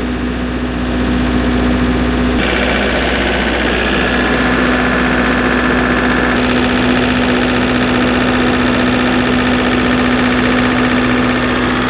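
MEP 803A military generator's diesel engine running steadily after its first start. About two seconds in, the sound abruptly turns brighter, with more high-pitched clatter, as the open engine bay is heard up close.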